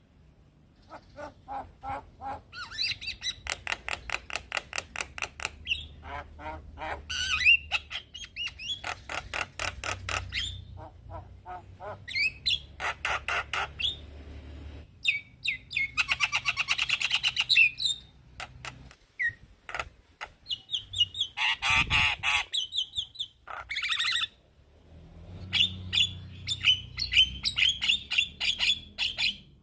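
Male Javan myna (jalak kebo) calling: bursts of rapid chattering and harsh rattling notes mixed with higher whistled phrases, with short pauses between bursts.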